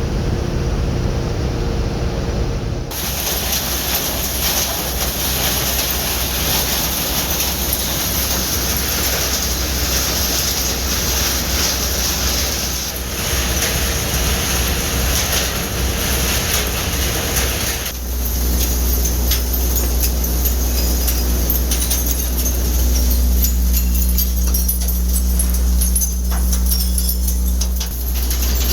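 Solar panel recycling machine running, with a steady low hum under a dense crackle and rattle of material being broken up. The sound changes abruptly about 3, 13 and 18 seconds in.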